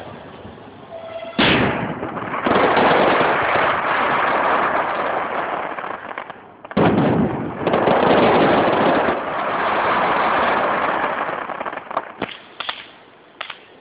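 Aerial fireworks going off: a sharp bang about a second and a half in, then a few seconds of dense, continuous bursting noise; a second bang around the middle with another dense stretch. It then dies away, leaving a few scattered pops near the end.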